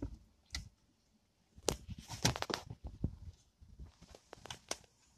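Scattered knocks, clicks and rustling as a person clambers into a hatchback's cluttered boot among clothes and plastic bags, thickest in the middle of the stretch and again near the end.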